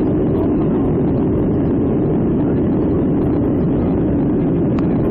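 Jet airliner during takeoff: a steady, loud, low rumble of engines and rushing air, with a short click near the end.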